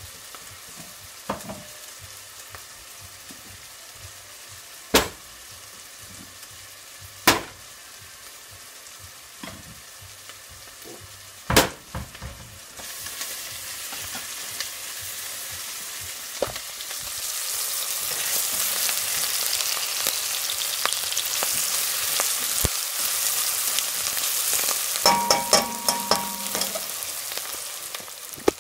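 Onion frying in hot oil in a pan, sizzling, with a few sharp knocks of a utensil against the pan. The sizzle swells about halfway through and stays loud, with a quick run of metallic clinks near the end.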